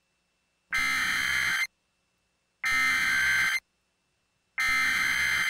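Emergency Alert System SAME header: three harsh, buzzy bursts of digital data tones, each about a second long with a second's pause between, marking the start of a new emergency alert.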